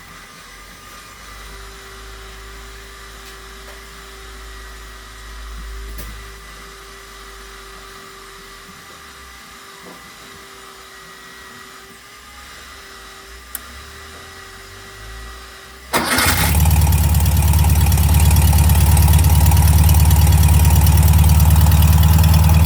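Faint steady background hum, then about two-thirds of the way in a rebuilt 1641cc Volkswagen air-cooled flat-four catches abruptly on its new Solex H30/31 PICT carburettor. It settles at once into a steady fast idle, the automatic choke holding the revs up.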